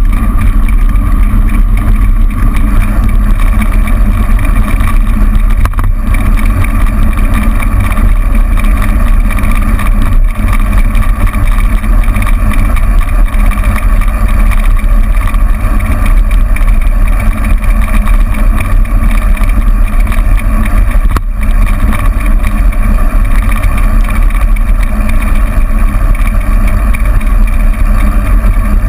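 Steady loud rumble of wind and road noise on a bicycle-mounted camera's microphone while riding, with motor traffic blended in; it stays unchanged throughout.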